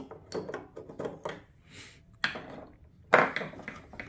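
Plastic clicks and rattles as a car headlight housing is handled and its indicator bulb socket worked out, then a louder knock about three seconds in as the headlight is shifted on a wooden bench.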